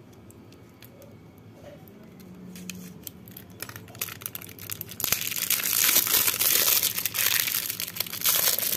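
Plastic wrapping being torn open and crinkled by hand. Sparse light crackles come first, then loud continuous crinkling and tearing from about five seconds in.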